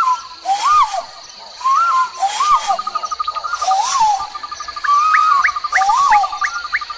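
Forest soundscape: a bird gives a repeated rising-and-falling call about once a second, over a steady fast trill and a high continuous insect drone.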